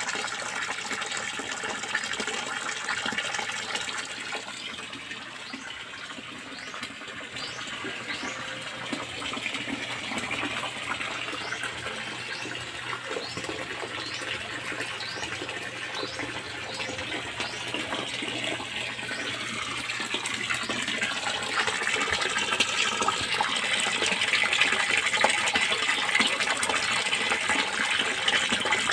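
Water running steadily from a pipe into a fish pond, splashing and gurgling; it grows louder in the last third.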